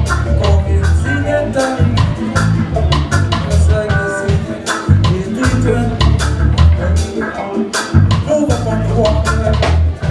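Live roots reggae band playing: a deep electric bass line in phrases with short gaps, sharp drum-kit hits, electric guitars and keyboard.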